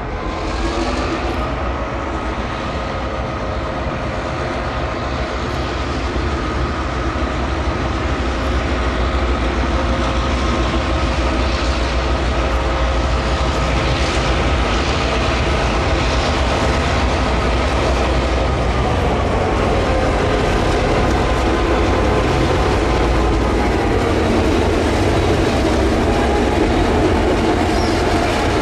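Two vintage Victorian Railways diesel-electric locomotives, X31 and T378, with EMD engines, pulling away under power with a heritage passenger train. The engine note rises about half a second in, holds steady, then steps down about two-thirds of the way through, while the passing carriages' wheels click over rail joints and the sound grows louder.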